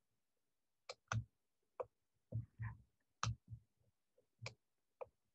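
Faint, irregular clicks and soft thumps, about ten in all, from hands working a computer at a desk.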